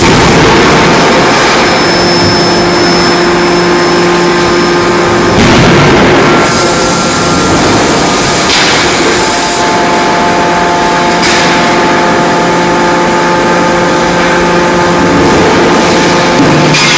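Loud, steady din of a hot die-forging line running, centred on a 125 kJ CNC hydraulic die-forging hammer: constant machine hiss and hum, with a few louder surges through it.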